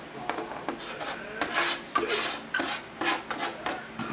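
Chef's knife blade scraping chopped green onions off a tilted board into a foil pan, in a quick series of short scraping strokes that are loudest in the middle.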